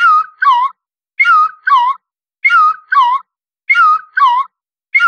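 A whistle-like two-note chirp, the second note dipping and rising in pitch, repeated identically about every second and a quarter with dead silence between the pairs: a looped sound effect.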